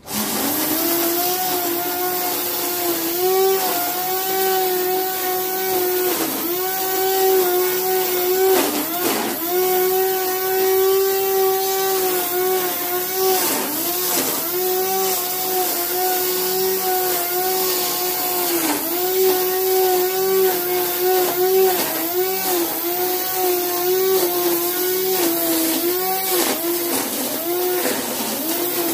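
Krisbow string trimmer running, its nylon line whipping through grass; the motor's steady hum dips briefly in pitch every few seconds as the line cuts into the grass.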